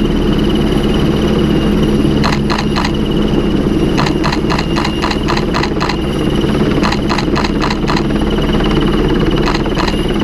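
Helicopter hovering overhead: loud, steady rotor and turbine noise. Short runs of rapid, evenly spaced clicks come and go about four times.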